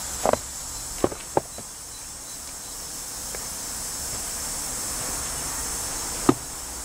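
Mamod Double Fairlie live-steam locomotive hissing steam steadily, with a few short knocks: two close together about a second in and one near the end.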